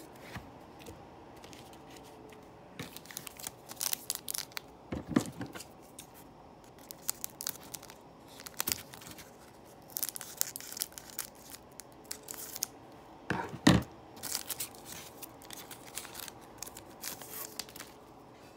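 A foil trading-card pack wrapper crinkling and tearing in bursts as it is opened, with cards rustling. There are two soft thumps, the louder one a little after halfway.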